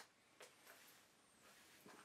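Near silence: room tone with a couple of faint ticks.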